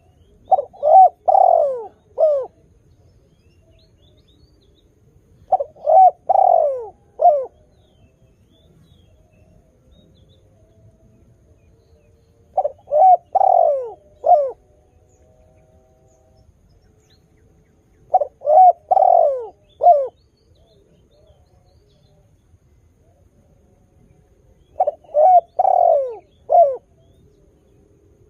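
Spotted dove cooing: five phrases of about four falling notes each, one every five to seven seconds.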